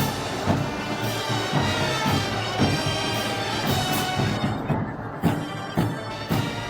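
Moros y Cristianos festival band music: brass playing over a steady drum beat, about two beats a second.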